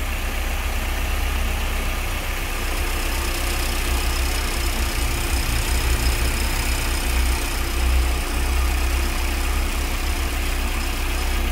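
Volkswagen AP 2.0 8v four-cylinder engine idling steadily, its timing belt wetted with water, which silences the belt noise coming from the tensioner or pulley area.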